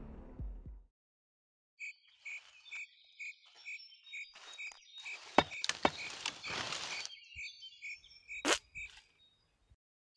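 Music fades out, then forest ambience: a small creature's call pulses about four times a second, footsteps swish through grass, and there is one sharp snap near the end.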